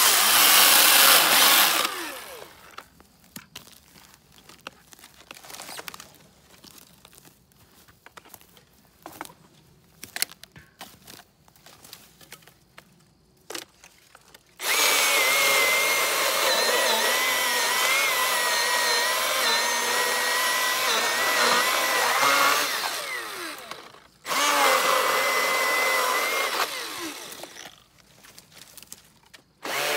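Milwaukee M18 Fuel brushless cordless chainsaw running at full speed with a high whine, in three runs: a short one at the start, about eight seconds in the middle, and a few seconds more after a brief stop. Between the runs there are only faint clicks and rustles.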